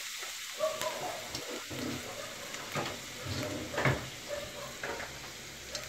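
Chopped garlic, ginger and green chilli sizzling in hot butter, ghee and oil in a nonstick frying pan, with a few short scrapes and taps of a wooden spatula as it is stirred.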